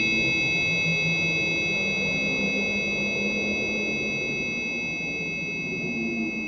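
A struck metal chime rings on with several high, steady overtones that slowly fade. Beneath it runs a low, wavering drone: Earth's electromagnetic vibrations rendered as sound.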